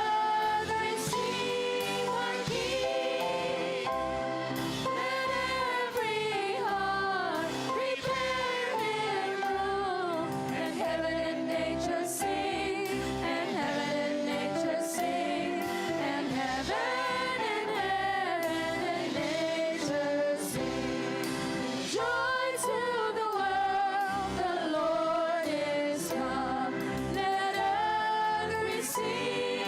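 Gospel-style Christian song sung by a choir of voices over instrumental accompaniment with a steady beat.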